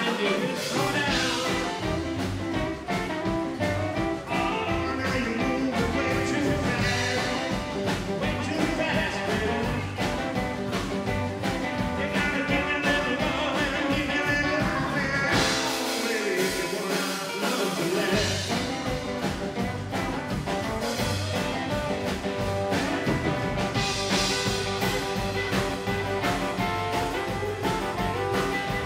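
Live rockabilly band playing: strummed acoustic guitar over drums and cymbals, with the low end dropping out briefly a little past halfway.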